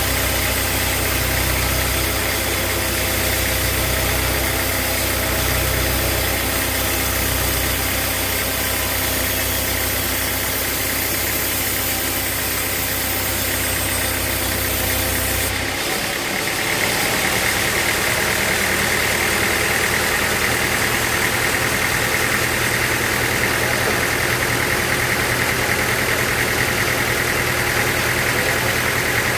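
Sawmill machinery running steadily with a deep engine-like drone. About halfway through the low rumble falls away and a higher, brighter sound takes over.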